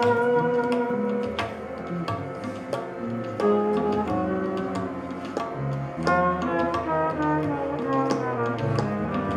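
Live jazz ensemble playing: held pitched notes that change every second or so, over frequent percussion strikes.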